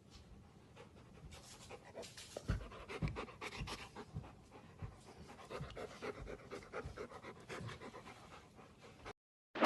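A dog panting rhythmically.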